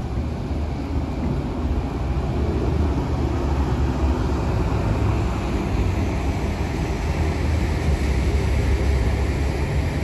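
Thames Clippers catamaran river bus running its engines as it pulls away from the pier: a steady low rumble that grows louder about two seconds in.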